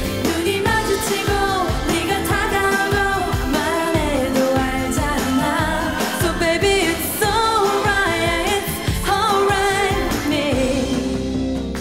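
K-pop song: a singer's voice gliding over a steady drum beat and backing track. Near the end the drums and the high end drop away, leaving held low notes.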